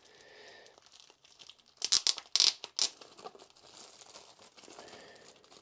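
Plastic anti-static bag around a portable hard drive crinkling as it is pulled open, with a cluster of sharp, loud crackles about two seconds in.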